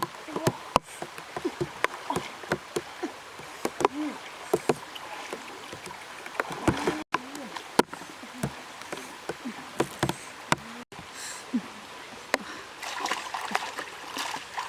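River water splashing and sloshing, with many short sharp splashes over a steady running-water hiss.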